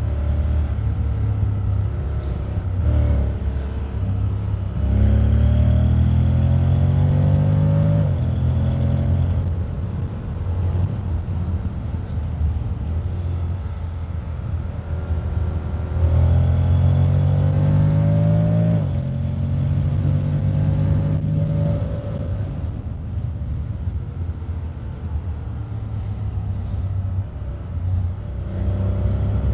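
Honda X-ADV 750's parallel-twin engine and exhaust while riding. It pulls hard twice, rising in pitch about five and sixteen seconds in, and each time the pitch drops suddenly as the gearbox shifts up. Between the pulls it runs lighter on a closed throttle.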